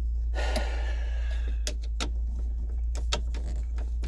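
A screwdriver scraping and clicking metal on metal in a jammed ignition lock cylinder as it is forced and twisted: one scrape with a ringing metallic edge about half a second in, then a few sharp clicks, over a steady low hum.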